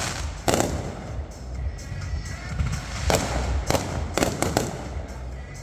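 Fireworks exploding: one bang about half a second in, then a quick run of four bangs between three and five seconds, over background music.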